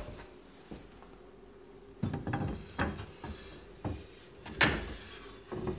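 A wooden cutting board sliding and knocking in steel angle-iron brackets under a kitchen cabinet: a few scrapes and knocks, the loudest about two thirds of the way in.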